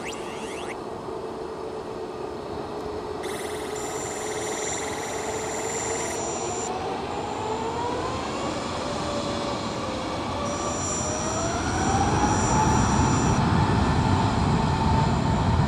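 Boeing 787-8 jet engines running as the airliner taxis. The engine whine climbs in pitch over several seconds, and the rumble grows louder near the end.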